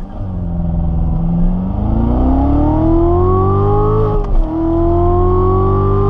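Corvette Z06's supercharged 6.2-litre V8, heard from inside the cabin during a launch-control start with the 7-speed manual. The engine note holds steady for about a second and a half, then climbs under full throttle, drops sharply at an upshift about four seconds in, and climbs again in the next gear.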